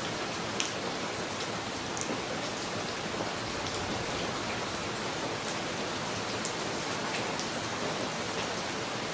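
Rain falling steadily, with the odd louder drop striking close by now and then.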